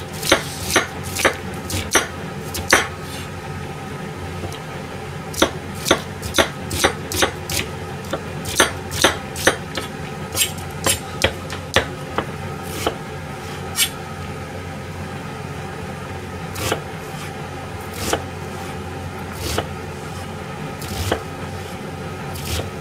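Kitchen knife cutting through onion onto a plastic cutting board: runs of sharp knocks, about two to three a second, with a pause after the first few seconds, thinning to single cuts every second or so in the second half.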